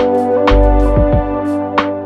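Instrumental background music: held chords over a bass line, with fresh notes struck every half second or so.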